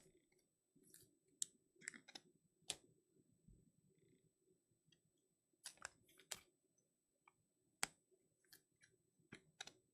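Faint, irregular clicks and light taps from handling trading cards and their packs, about fifteen in all, scattered unevenly.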